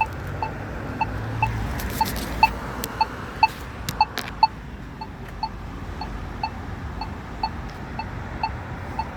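Crosswalk push-button locator tone from an accessible pedestrian signal, beeping steadily at about two short beeps a second. A few sharp clicks fall among the beeps in the first half.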